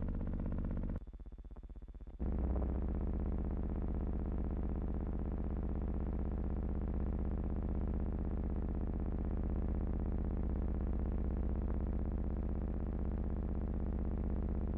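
Background music: a steady synthesizer drone of held low notes. It drops back for about a second near the start, then resumes.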